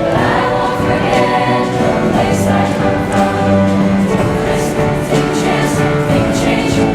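A choir singing over accompaniment with a steady beat.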